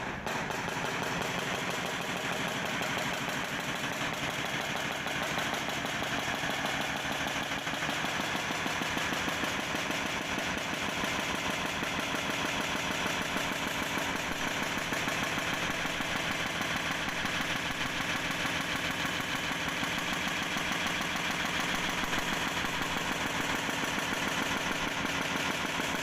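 Jackhammer hammering continuously in rapid blows while digging a trench, with an engine running underneath.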